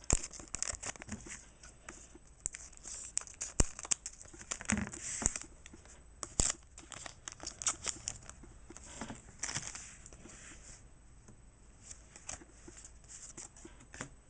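Foil trading-card booster pack wrapper crinkling and tearing open, with cards being handled: a run of irregular sharp crackles that thins out over the last few seconds.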